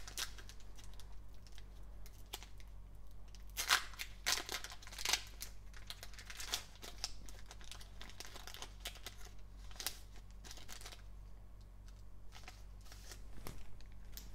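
Foil wrapper of a Panini Select basketball card pack being torn open and crinkled by hand, an irregular run of crackles and rustles, loudest about four to five seconds in.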